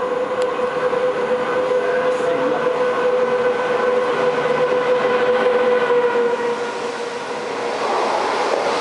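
SS8 electric locomotive and its through train approaching and running through a station without stopping. A steady hum with higher overtones holds until about two-thirds of the way in, then a rising rush of wheel and coach noise as the carriages pass close by near the end.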